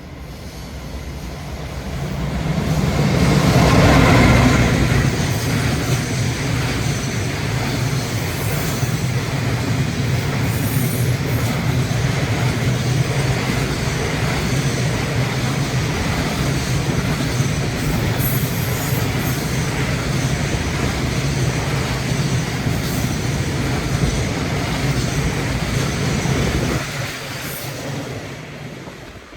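A JR Freight EF210 electric locomotive passes at speed hauling a container freight train. The sound builds to its loudest about four seconds in as the locomotive goes by, then the long string of container wagons runs past with a steady rail rumble and occasional sharp ticks from the wheels. It fades away near the end as the last wagon passes.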